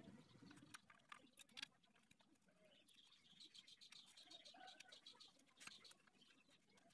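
Near silence, with faint scattered clicks and taps of small metal engine parts being handled while the cam chain and its sprocket are taken off.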